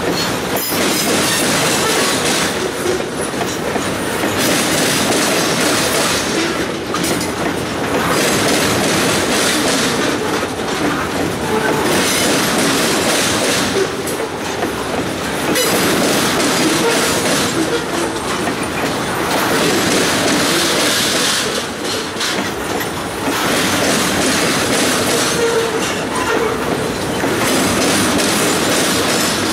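Loaded continuous-welded-rail train of rail-rack flatcars rolling by: a steady rumble and rattle of wheels on the track. The hiss in the upper range swells and fades every few seconds as the cars pass.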